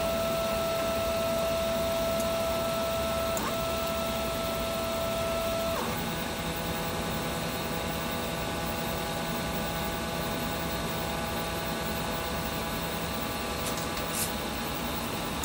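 Stepper motors of a custom-built CoreXY 3D printer whining with a steady high tone while it carries out a home-all command. About six seconds in, the tone changes to a lower hum with several steady pitches as the motors' drive changes, and it holds there.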